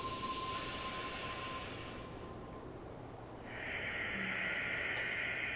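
Sitkari cooling breath: a hissing inhale drawn in through the teeth for about two seconds, then, after a short pause, a breathy exhale.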